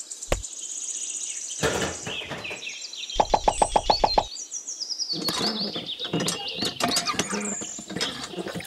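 A single knock, then a quick even run of about ten knocks, followed by birds chirping and twittering with high, falling calls.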